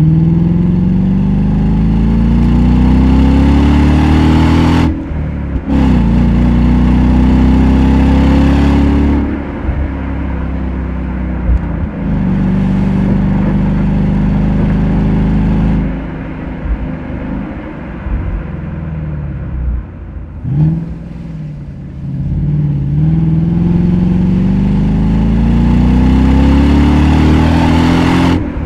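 Ford Mustang GT's V8 under hard acceleration, its note climbing in pitch through several long pulls. The pulls are broken by upshifts and stretches off the throttle, with a quick throttle blip about twenty seconds in.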